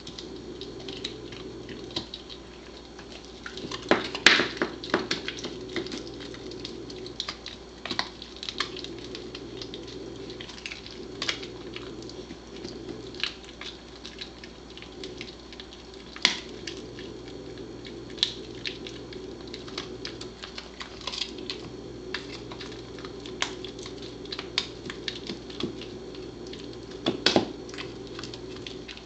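Pembroke Welsh Corgi gnawing a buffalo rib: irregular sharp cracks and crunches of teeth on bone and meat, loudest in clusters about four seconds in and near the end, over a steady background hum.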